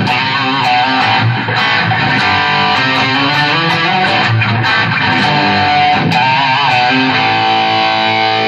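Electric guitar, a Gibson Les Paul Special with P90 pickups, played through a Visual Sound Route 66 V3 overdrive/compressor pedal into a 1978 Fender Pro Reverb amp: a run of changing notes, then a chord struck about seven seconds in and left to ring.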